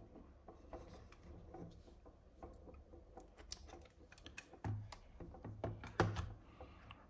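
Scattered light clicks, taps and small knocks as the metal chassis and circuit board of a homemade 1970s Nixie clock are handled and turned over, with a sharper knock a little after three seconds in.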